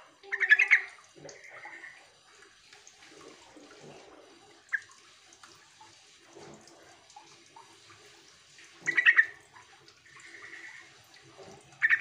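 Yellow-vented bulbul (trucukan) calling in short, loud, bubbling chattering phrases, three of them: one about half a second in, one about 9 s in and one at the very end, each followed about a second later by a softer phrase.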